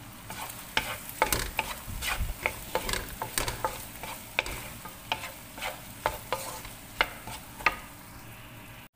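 Wooden spatula stirring and tossing rice in a hot wok, with irregular sharp taps and scrapes of the spatula against the pan over a low frying sizzle.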